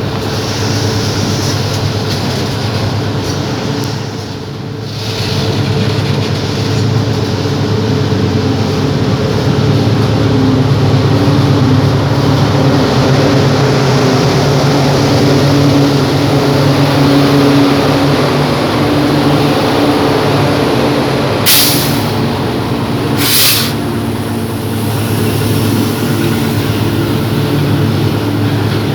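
Loaded mixed freight train rolling past on a descent, a steady heavy rumble of wheels on rail with low mechanical drone. Two brief hisses come near the end, about two seconds apart.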